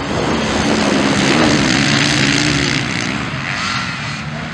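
Motocross dirt bike engines revving hard as the bikes race past close by, the pitch rising and falling with the throttle; the sound swells to its loudest in the middle and eases off near the end as they pull away.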